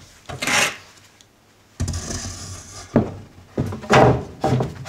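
Wooden framing lumber being handled: a short scrape about half a second in, a longer sliding scrape of wood a second later, then a few sharp knocks of wood on wood.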